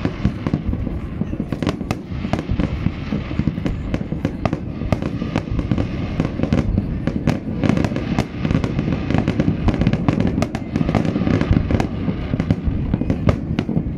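Fireworks display: a dense, continuous barrage of shell bursts, a low rumble of booms with many sharp cracks several times a second.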